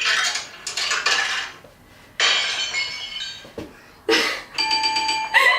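Sound effects played through a phone speaker from a soundboard app: a run of short glassy clinking and breaking sounds, then a brief steady electronic tone near the end.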